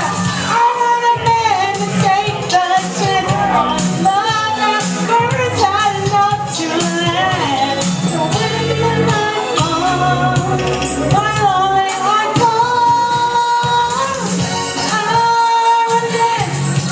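A pop song playing: a wavering lead melody line, with several long held notes, over a steady band backing.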